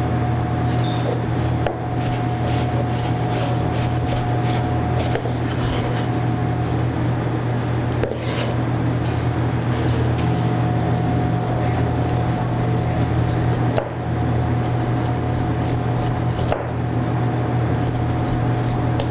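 A chef's knife dicing grilled Japanese eggplant on a cutting board in scattered taps, then scraping kernels down a grilled ear of sweet corn. A steady low hum runs underneath, louder than the knife.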